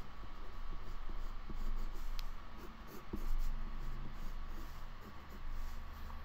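Pen strokes scratching on sketchbook paper as lines are drawn over and darkened, with a couple of small ticks of the pen on the page.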